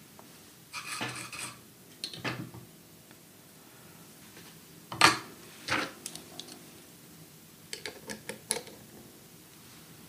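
Small hand tools clinking and knocking as they are picked up and handled at a workbench, in several short separate clatters, the loudest about five seconds in and a quick run of clicks near the end.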